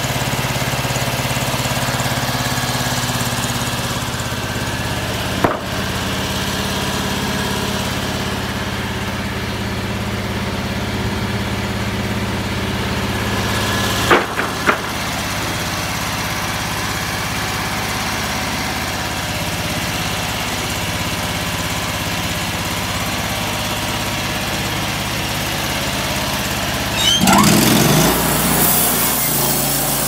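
Homemade bandsaw sawmill's engine running steadily, with sharp knocks about five seconds in and again about fourteen seconds in, and a brief louder surge near the end.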